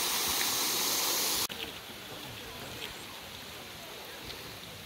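Small waterfall pouring down a rock face into a pool, a steady rushing hiss that cuts off abruptly about a second and a half in, leaving a much quieter outdoor background with a few faint ticks.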